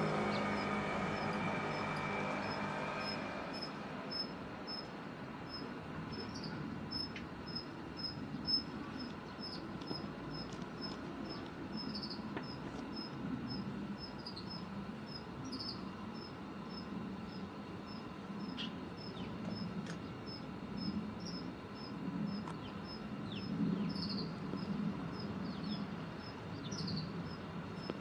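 An insect chirping steadily, about twice a second, with a few short, high, falling bird calls now and then. A passing car fades away over the first few seconds, over a low steady background hum.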